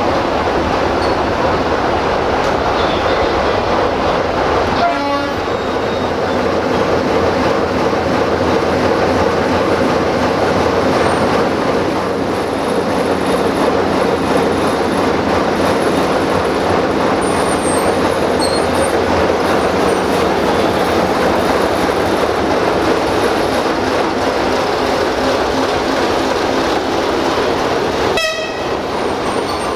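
Sulzer diesel engine of a 060-DA1 (LDE2100) diesel-electric locomotive running loud and steady alongside the platform, with two short breaks in the sound about five seconds in and near the end.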